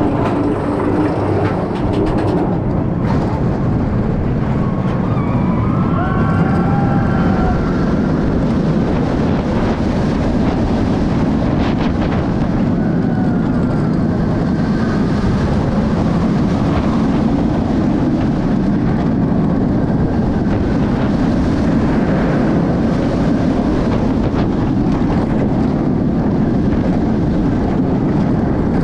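Alpengeist, a steel inverted roller coaster, running at speed through its drop and inversions: a loud, steady rumble of the train on the track mixed with a heavy rush of air over the ride camera.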